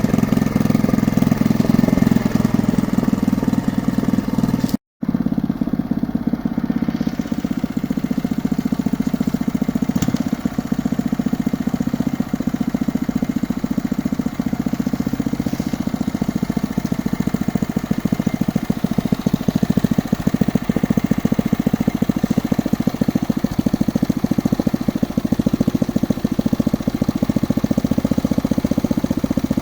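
Engine of a geological exploration drilling rig running steadily. The sound cuts out completely for a moment about five seconds in.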